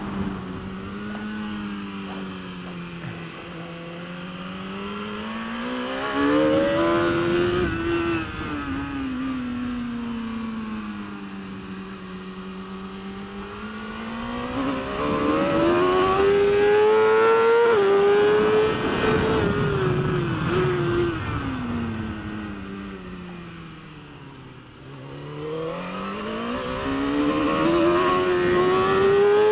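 BMW S1000RR's 999cc inline-four racing engine under race load, its pitch climbing for several seconds as it accelerates and sinking again as it slows for corners, in long repeated sweeps. It is at its lowest and quietest about three-quarters of the way through, then climbs hard again.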